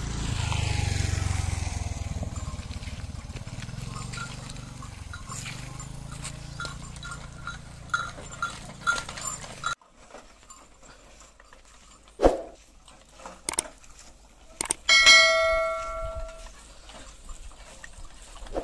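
Bells on a pair of cart bullocks hauling a heavy load clink as the animals walk, over a low rumble that stops suddenly about halfway through. A few sharp knocks follow. Near the end one bell rings out loud and clear for over a second.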